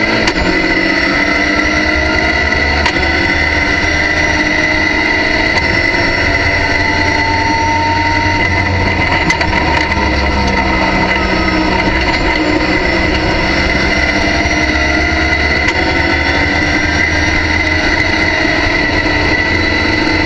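Racing car engine under full throttle heard from inside the cockpit, pulling hard and rising in pitch through the gears with upshifts as the car accelerates, a steady high whine over it.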